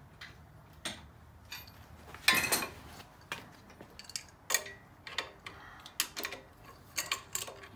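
Steel wrenches clinking and ticking against the bolts and mounting plate of an engine stand while an engine block is bolted onto it: irregular sharp metallic clicks, about two a second, with one louder, longer metallic rattle about two and a half seconds in.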